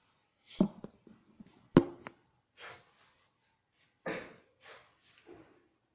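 Knocks and rustling from a helmet being handled and pulled on, with the sharpest knock about two seconds in and a few short scuffs after.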